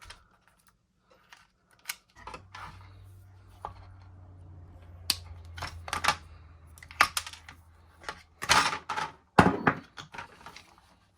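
Small plastic parts clicking and rattling as an RC truck's receiver box is opened and the speed control lead unplugged, with a low steady hum through the middle and a few louder rasping scrapes near the end.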